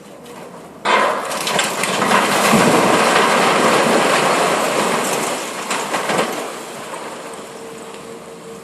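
Part of a concrete building collapsing: a sudden crash about a second in, then a long rumble of falling concrete and debris that dies away over several seconds.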